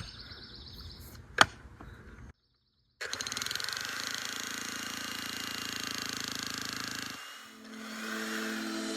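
Vevor electric jackhammer running with a steady, rapid hammering for about four seconds after a short cut, preceded by a single sharp click. Music starts to come in near the end.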